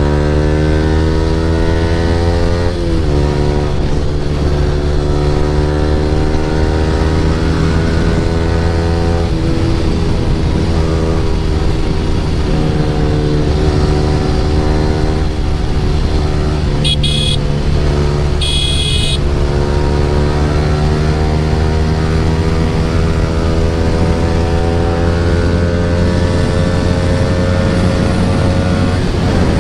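Yamaha R15 V3's single-cylinder engine through an Akrapovic full-system exhaust, riding along with the pitch rising slowly as it pulls through the gears and dropping at a gear change about three seconds in. Two short horn beeps sound about halfway through.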